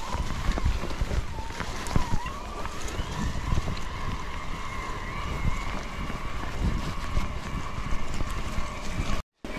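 Wind buffeting a GoPro action camera's microphone while on the move, over a constant low rumble, with a steady whine that wavers slightly in pitch. The sound cuts out for a moment near the end.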